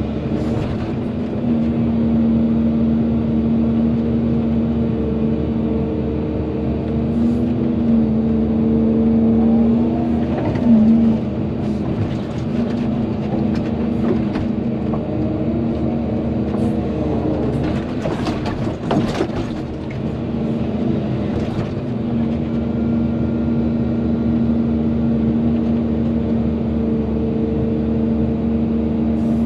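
Volvo EC220DL excavator's diesel engine running steadily while it digs, its pitch sagging and recovering a few times under load. Scattered knocks and clatter come mostly in the middle.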